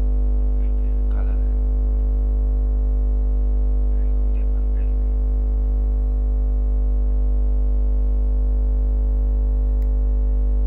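Loud, steady electrical hum and buzz: a constant drone with a deep low tone and a stack of higher buzzing tones that never changes in pitch or level. Faint brief mouth or voice sounds come through about a second in and again around four and a half seconds.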